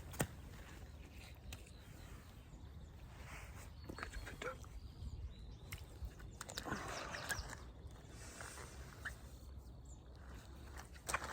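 Faint, scattered footsteps and small clicks over a low steady rumble, with a slightly louder scuffing patch about two-thirds of the way through.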